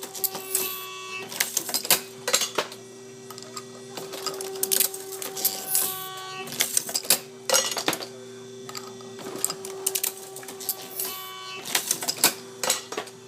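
MEC 9000H hydraulic shotshell reloading press running: a steady hum under repeated rounds of sharp clicking and clanking as the press cycles through its strokes.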